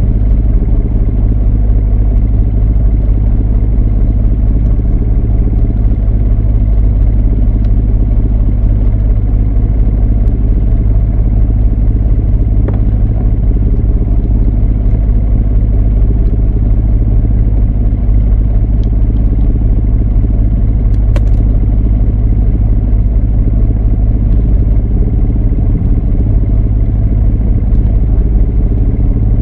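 Boat's inboard engine running steadily at low revs, a deep even drone. Two brief faint clicks come through about halfway in.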